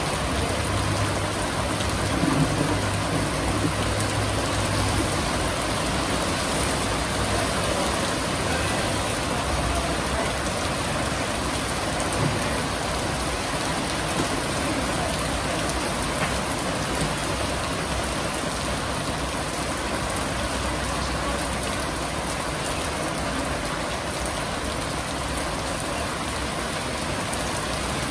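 Steady rain falling, an even hiss of drops. A low hum sits under it for the first few seconds.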